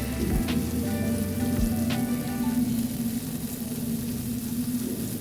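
Chicken breast pieces coated in cornstarch marinade sizzling as they fry in hot oil, a steady hiss with two sharp knocks about half a second and two seconds in. Background music with held notes plays over the first half.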